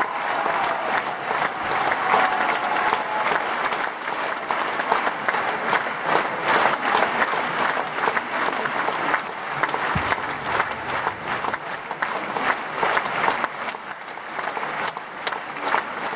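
Opera house audience applauding: dense, continuous clapping from a large crowd with no break.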